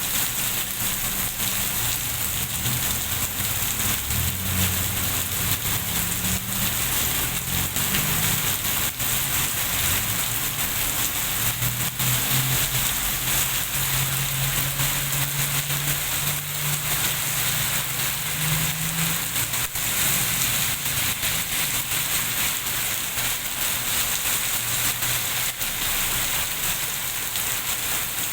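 Steady heavy rain falling and pattering on surfaces, a dense hiss of drops. A low hum comes in underneath for the first several seconds and again through the middle.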